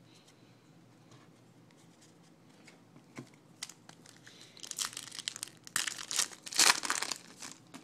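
Foil wrapper of a 2012 Bowman baseball card pack crinkling in short bursts as a pack is picked from the stack and torn open, loudest near the end. The first few seconds hold only faint handling.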